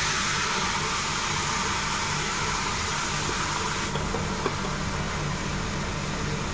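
Blended tomato poured into a hot stockpot of frying lamb, onion and spices, sizzling with a steady hiss that eases slightly about four seconds in. A steady low hum runs underneath, and a spatula taps faintly against the bowl as it is scraped out.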